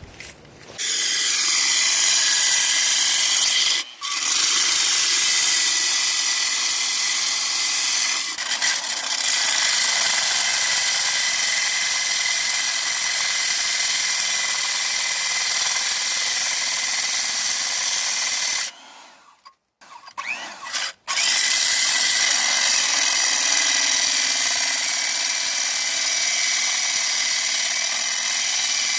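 Electric core drill with a 5-inch core bit cutting through a concrete block wall: a steady, high whining grind. It pauses for a moment a couple of times, stops for about two seconds past the middle, then starts cutting again.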